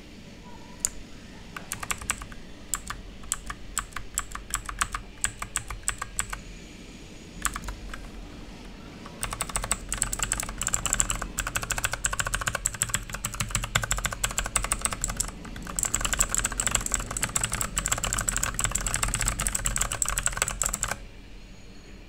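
Zebronics Zeb-Nitro mechanical keyboard with clicky Outemu Blue switches: scattered separate keypresses for the first several seconds, then fast continuous typing from about nine seconds in that stops about a second before the end.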